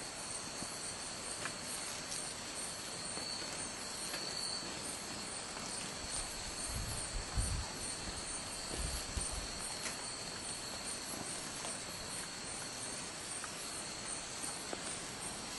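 Night-time insect chorus: a steady high-pitched trill with a fainter, higher pulsing trill above it. A few low rumbling bumps come about seven to nine seconds in.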